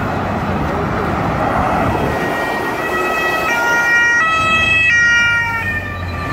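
Escort siren sounding in a two-tone pattern, switching pitch about every two-thirds of a second, from about two and a half seconds in. Under it is the steady noise of a convoy of cars and motorcycles driving past.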